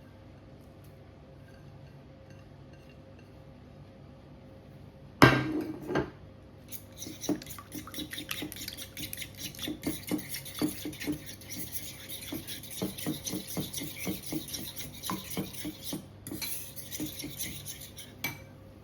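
Kitchen utensil clanking and scraping against a pot or dish: one loud clank about five seconds in, then quick, repeated clinks and scrapes that stop suddenly near the end.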